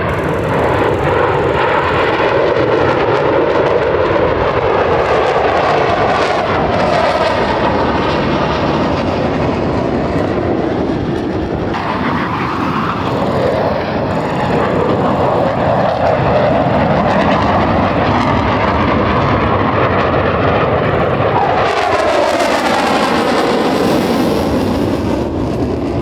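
Loud, continuous jet-engine noise from Blue Angels F/A-18 Super Hornets flying past, with the pitch sliding as the jets pass, once around the middle and again near the end.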